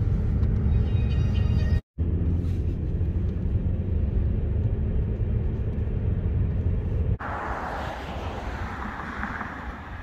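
Steady low road rumble inside a moving car, broken by a brief dropout about two seconds in. About seven seconds in it cuts to a quieter, even outdoor hiss.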